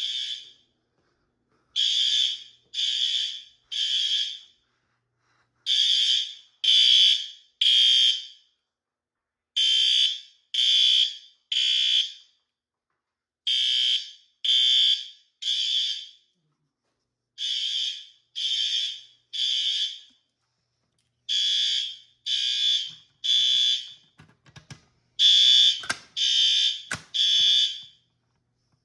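System Sensor L-series fire alarm horns sounding the temporal-3 evacuation pattern: three short high-pitched blasts, a pause, then three more, repeating about every four seconds. A few sharp knocks come near the end, where one group of blasts is louder.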